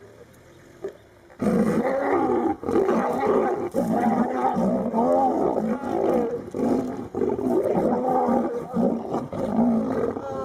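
A male lion and lionesses roaring and growling as they fight. The sound starts suddenly about a second and a half in and then goes on without a break.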